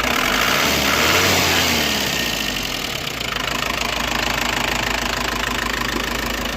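Car engine revving up once and dropping back, then idling steadily, on a trial run after a water-leak repair to check for leaks.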